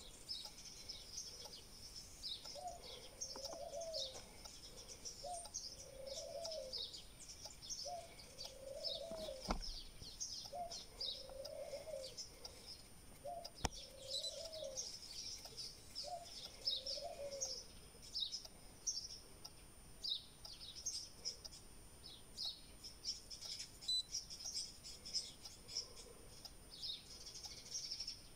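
Faint birdsong: small birds chirping throughout, with a lower two-note call repeated about every two and a half seconds, six times, over the first half.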